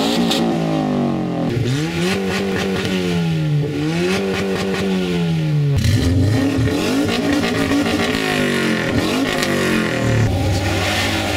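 Two Subaru Impreza sedans' flat-four engines revved in turn while parked: the first is blipped up twice, each time held high for a couple of seconds and then let fall. About six seconds in, a second Impreza takes over with quicker, more varied revs.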